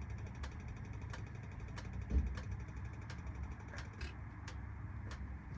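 BMW E34's M50 straight-six engine idling steadily when hot, running smoothly now that it starts and idles properly again. A light tick repeats about every two thirds of a second, and there is one thump about two seconds in.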